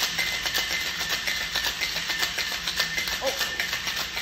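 Metal cocktail shaker tin being shaken hard, its contents rattling in a fast, continuous clatter that pulses a few times a second. The hard shake breaks up fresh mint in the drink.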